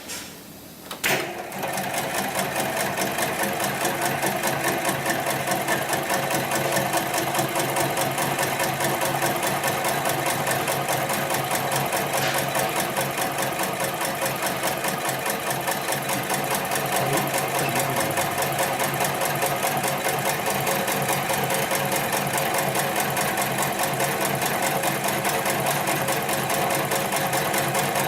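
Extra heavy duty computer-controlled pattern sewing machine stitching rope: a clunk about a second in as it starts, then a steady fast run of stitches.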